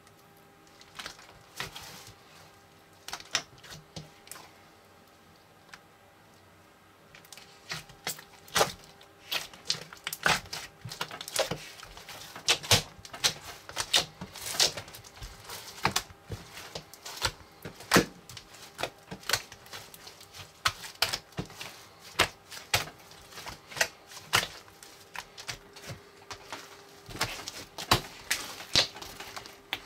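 Foam bead slime squeezed and worked by hand, giving off irregular crackling and popping clicks. The clicks are sparse at first and grow thick and continuous from about seven seconds in.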